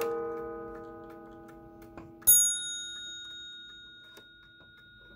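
Seth Thomas Adamantine mantel clock ticking, with the low ring of its coiled wire gong dying away from a strike just before. About two seconds in comes a single sharp, higher-pitched metallic ring, the loudest sound, which fades slowly.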